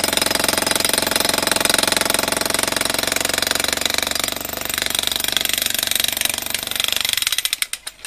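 Corded electric demolition hammer breaking up a concrete slab: a rapid, steady hammering of the chisel bit into the concrete, which stops shortly before the end.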